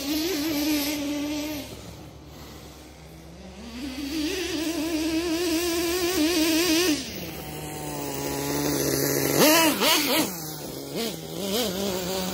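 Kyosho Mad Force nitro RC monster truck's small glow engine running at high revs in long, slightly wavering pulls, easing off between them. It drops to a low, steady pitch, then gives a sharp, loud rev burst and a few quick throttle blips near the end.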